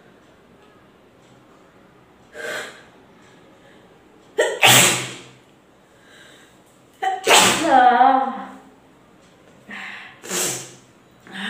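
A woman sneezing repeatedly, a string of separate sneezes with sharp intakes of breath between them. The two loudest come about halfway through, the second ending in a drawn-out, falling voiced 'choo'.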